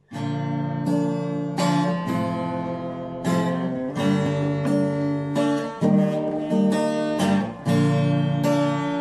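Acoustic guitar being strummed, a chord struck about once a second and left to ring, the chords changing as it goes.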